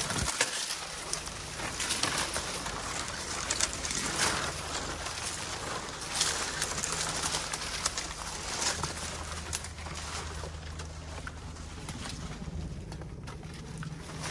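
Footsteps and bodies pushing through dry palmetto fronds and leaf litter: a continuous crackling rustle with scattered crunches, a little quieter near the end.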